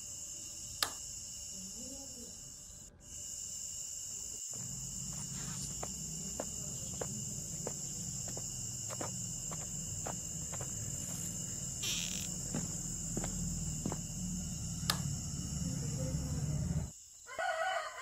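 Steady high-pitched chirring of crickets, with scattered small clicks as the metal parts of a miniature model train are coupled by hand. A low rumble joins underneath about four seconds in.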